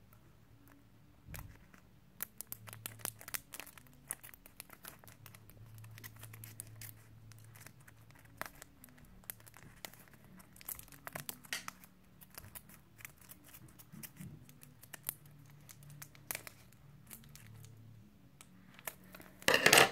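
Crinkly wrapping on a sealed promo trading card being picked at and torn open with difficulty: scattered crackles and sharp ticks, with a louder burst near the end.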